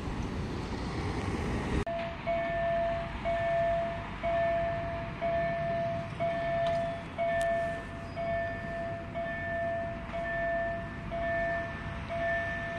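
Level-crossing warning bell sounding, a pitched ding repeated about once a second, the warning that a train is approaching and the barriers are coming down. It starts after about two seconds of traffic noise that cuts off abruptly.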